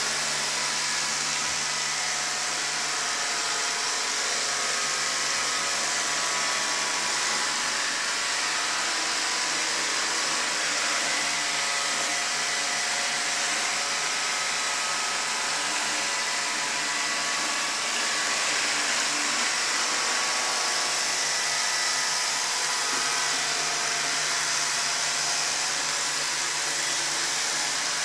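Robot vacuum cleaner running: a steady whir from its motor and suction fan, with a few faint steady tones in it.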